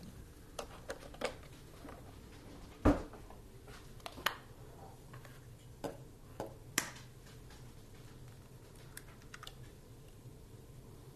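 Scattered kitchen clicks and knocks: a solid knock about three seconds in, then a few sharp taps a few seconds later as an egg is cracked on the rim of a glass measuring cup.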